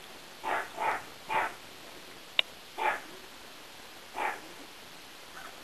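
An animal calling: five short, harsh calls spread over the first four seconds or so, with one sharp click about two and a half seconds in.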